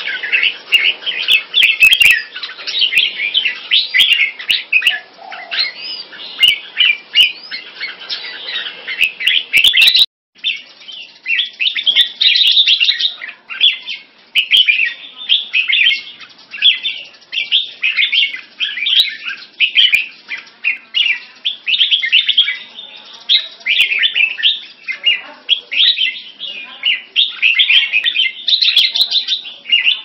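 Red-whiskered bulbuls singing in quick, dense, repeated chattering phrases, two caged birds answering each other in a sparring bout. The song stops for a moment about a third of the way in, then carries on.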